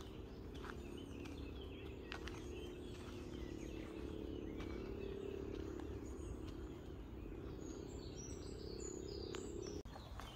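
Outdoor park ambience: small birds chirping in the trees over a steady low background hum, with a quick run of high chirps near the end. The hum cuts off abruptly just before the end.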